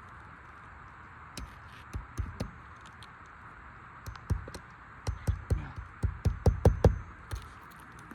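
Hammer driving roofing nails into asphalt shingles: a few scattered taps, then a run of sharp strikes about three a second in the second half.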